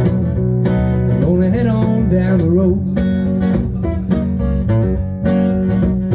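Acoustic guitar strummed with a man singing over it, a live country-style song.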